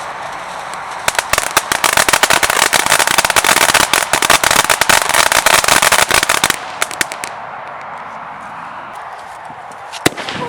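Firework fountain hissing steadily, then crackling densely and rapidly for about five seconds before the crackles thin out and the hiss fades. A single sharp crack comes near the end.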